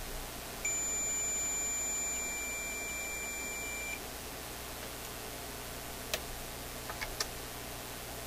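A multimeter's continuity beep: one steady high-pitched tone lasting about three seconds, the sign of an electrical connection between the two probed points. A few light clicks of the probes follow.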